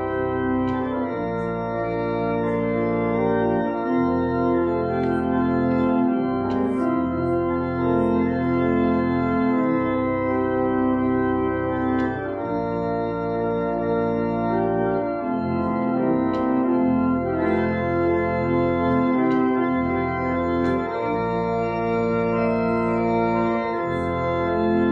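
Church organ playing offertory music: slow, sustained chords over a held bass, changing every few seconds.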